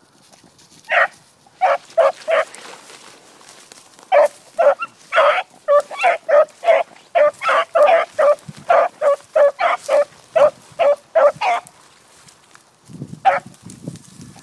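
Dog barking: a few barks about a second in, then a fast run of repeated barks, about two a second, and a single bark near the end.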